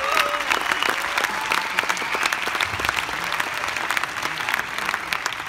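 Large audience applauding, many hands clapping at once, easing off a little toward the end.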